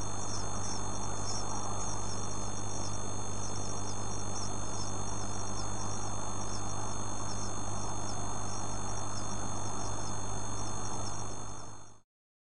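Rapid, high-pitched chirping over a steady electrical hum and hiss, fading out near the end.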